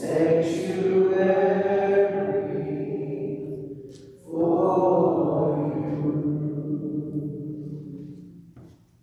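A group of voices singing two long, held phrases with a short breath between them about four seconds in; the second phrase fades out near the end.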